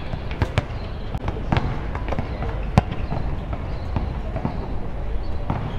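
Basketballs bouncing on an outdoor hard court: irregular sharp knocks, a few a second at most, over a steady low rumble.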